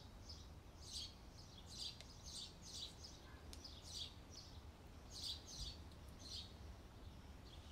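Near silence, with faint bird chirps: a dozen or so short, high chirps at irregular intervals.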